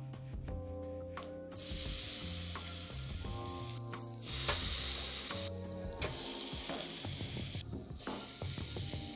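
Raw chops sizzling loudly on a hot wire grill over charcoal. The hiss starts about a second and a half in and breaks off abruptly a few times, over background music.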